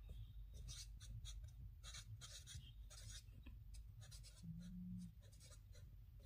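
Felt-tip marker pen writing on a white surface: a series of short, faint scratchy strokes as letters are drawn.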